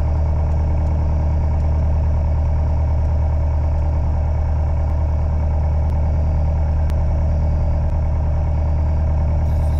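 Light aircraft's piston engine running steadily, heard from inside the cockpit. A couple of faint clicks from the camera's audio track are heard a little after the middle.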